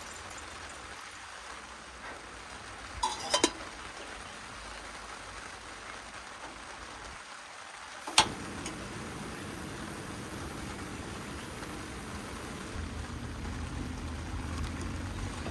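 Steady rain hiss, with a few sharp knocks about three seconds in and a single sharper knock just past eight seconds. A low rumble rises near the end.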